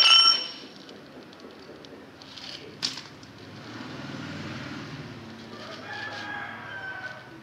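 Sharp metal-on-metal clink that rings briefly, from the steel valve spring compressor and keepers on a diesel cylinder head as a valve spring is fitted, followed by a single click about three seconds in. A chicken calls faintly in the background near the end.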